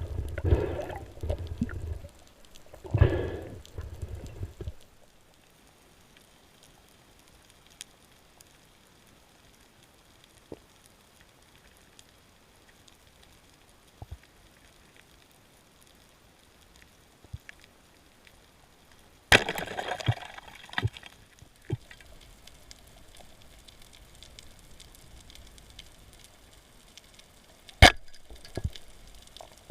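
Water sloshing and splashing for the first few seconds, then a long quiet stretch broken by scattered sharp clicks. A short burst of splashing comes about two-thirds of the way through, and a single loud sharp click near the end.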